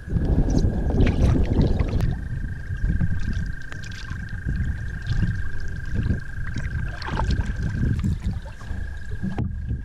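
Wooden canoe paddle strokes splashing in lake water, over a steady low rumble. A faint, steady high whine runs under it from about two seconds in.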